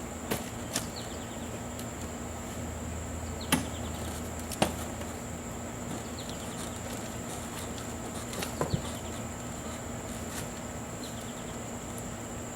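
A few sharp knocks of a garden fork striking the container while sifting potting dirt, over a steady, high-pitched insect drone.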